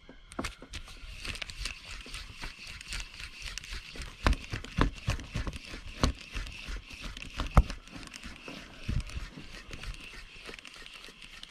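Irregular knocks, clicks and rustles from gloved hands working a spinning rod and reel right against the microphone, over a steady faint hiss; the loudest knock comes about seven and a half seconds in.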